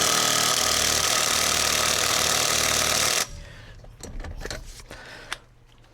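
Impact wrench hammering for about three seconds on the steering wheel's 10 mm Allen center bolt, then stopping abruptly; the bolt does not break loose. A few light tool-handling clicks follow.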